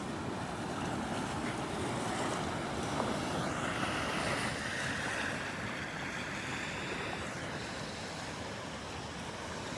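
Small ocean waves, about 1 to 2 feet, breaking and washing up the beach in a steady surf wash that swells for a few seconds in the middle.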